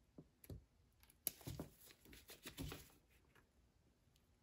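Faint clicks and rustles of a hand wire stripper/cutter being worked on insulated wire leads, with one sharp click a little over a second in.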